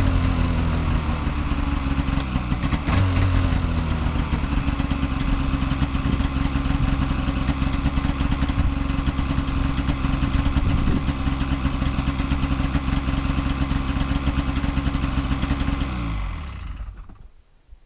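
2004 Polaris Pro X 550 snowmobile's two-stroke engine idling shortly after a cold start, with a brief blip of throttle about three seconds in. Near the end it is switched off and winds down to a stop.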